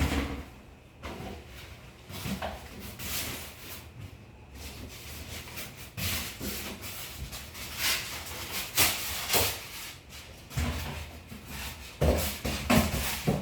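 Irregular handling noises: rubbing and scraping with scattered knocks, the loudest right at the start and again near the end.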